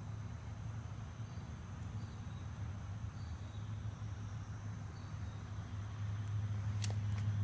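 Night insects, crickets by their sound, keep up a continuous high drone over a steady low hum, with a few sharp clicks near the end.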